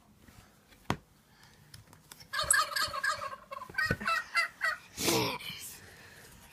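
Turkey gobble played by a toddler's farm-animal sound toy: a sharp click about a second in, then a rapid run of gobbling notes for about two seconds and a short falling call.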